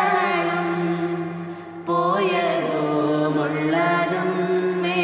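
Slow, chant-like singing of a Malayalam hymn to the Virgin Mary, on long held notes. The level dips briefly about a second and a half in, then the singing comes back with a rising note at about two seconds.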